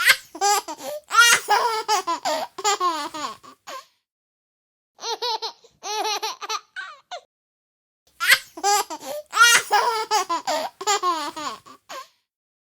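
A baby laughing in quick, high-pitched giggling bursts, in three spells broken by short silent pauses.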